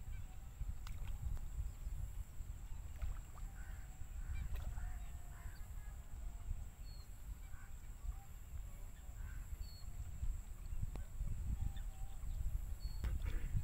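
Wind rumbling on the microphone beside open water, growing stronger near the end, with faint bird calls and chirps scattered through.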